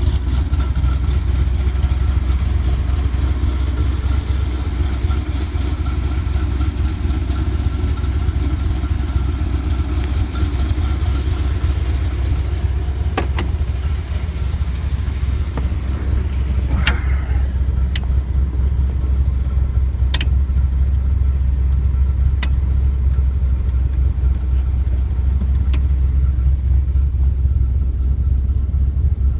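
1969.5 Dodge Super Bee's 440 Six Pack big-block V8 idling with a steady low rumble. The sound turns duller about halfway through, and a few sharp clicks follow.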